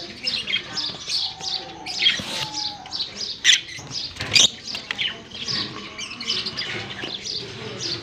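Lovebirds chirping in a rapid, continuous stream of short, high-pitched calls, with a couple of sharper knocks around the middle.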